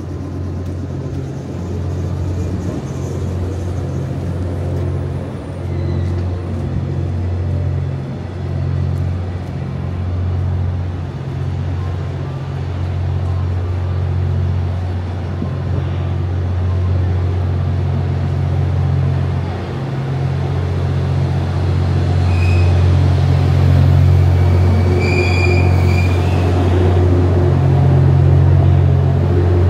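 The Twilight Express Mizukaze's on-board diesel generators humming low while the train stands at the platform, wavering in level at first, then growing louder and steadier in the last several seconds as departure nears.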